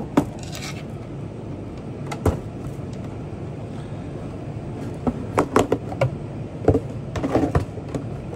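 Rigid gift box being handled and its lid lifted off on a counter: short knocks, taps and scrapes, one early and a cluster about five to seven seconds in, over a steady low background hum.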